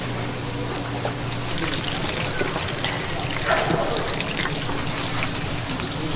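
Hot oil in a tempura fryer sizzling with a steady hiss and many small crackles.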